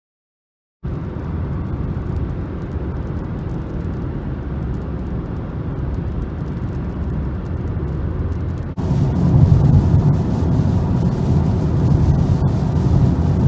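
Steady road and engine rumble heard from inside a car driving at highway speed, starting after a brief silence. About nine seconds in it cuts to a louder rumble of driving on a wet road in rain.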